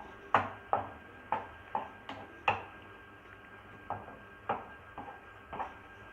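Carrot halwa being stirred in a pan, the stirring utensil knocking and scraping against the pan in about a dozen irregular strokes, with a brief pause partway through.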